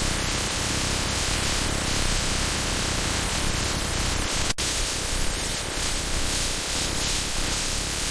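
Steady, dense static-like noise, hiss over all pitches, with a momentary break about four and a half seconds in.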